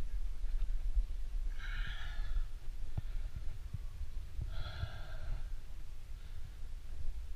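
A rock climber breathing hard, with two loud, strained breaths about three seconds apart, over a steady low rumble on the microphone.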